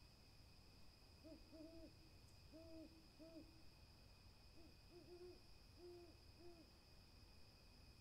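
An owl hooting quietly: about ten short, low hoots in loose, irregular groups, with a faint steady high tone underneath.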